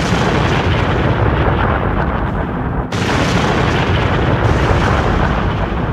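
Long, loud rumbling explosion sound effect closing a rock song, with a sudden short break about three seconds in.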